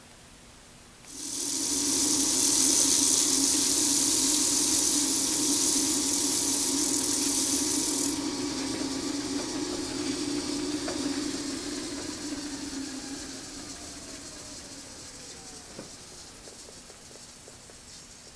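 Hardinge Cataract bench lathe switched on about a second in, its spindle running with a steady hiss and hum. The power cuts off abruptly partway through and the spindle coasts down, a faint whine falling in pitch as it slows and the sound fades away.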